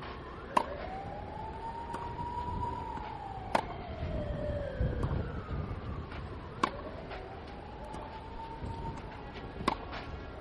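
Tennis ball struck by a racket four times, sharp pops about three seconds apart, in a groundstroke rally. Behind them a siren wails, rising and falling slowly.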